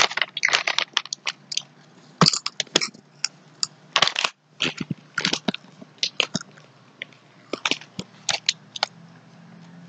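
Pringles potato chips crunching and a crinkly plastic Pringles snack bag being handled, close to the microphone: a series of short, sharp, irregular crackles, with louder clusters near the start and about four seconds in.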